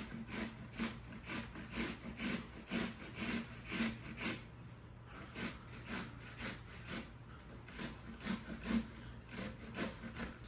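Half an onion being grated on a metal cheese grater: rhythmic rasping strokes, about two a second.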